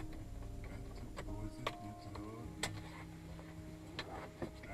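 A few faint, irregularly spaced clicks over a low, steady hum.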